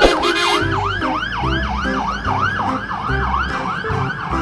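Fire engine siren on a fast yelp: a wail rising and falling about three times a second.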